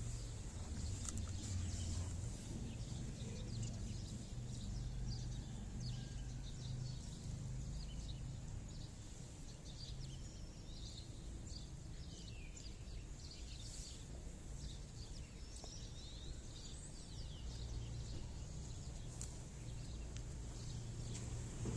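Steady low outdoor background rumble, with small birds chirping now and then throughout.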